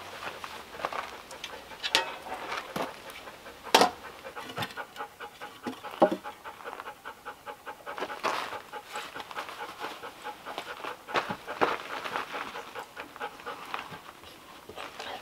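Golden retriever panting in quick, even breaths, with a few sharp knocks, the loudest about four and six seconds in.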